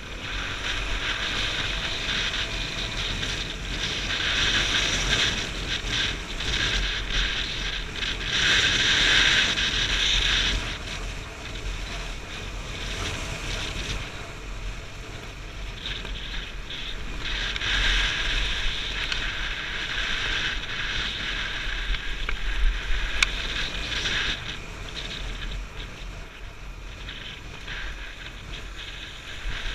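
Off-road motorcycle engine running while riding a rough gravel track, heavily mixed with wind buffeting the microphone. The noise swells and eases, loudest around a third of the way in and again past the middle.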